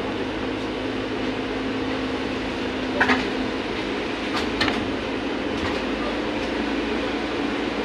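VMZ-100 trolleybus heard from inside the passenger cabin while driving: steady rolling cabin noise with a low, even hum. A few short knocks or rattles sound through it, the loudest about three seconds in and two more a second and a half later.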